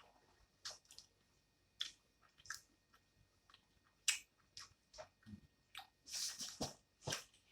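A person chewing and biting food close to the microphone: irregular wet clicks and smacks, with a louder, denser cluster about six seconds in.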